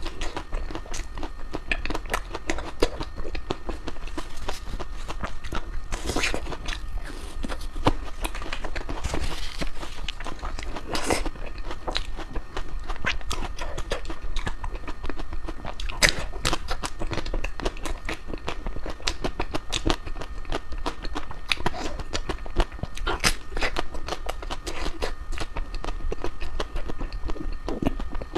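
Close-up chewing and biting of crispy ice cream: a dense run of irregular crunches and crackles, with a few louder bites.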